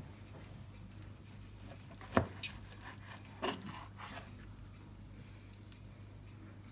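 Ceramic knife and fork clicking and scraping on a plastic cutting board while slicing cooked pork, with one sharp click about two seconds in and a second, softer clatter about a second later. A low steady hum runs underneath.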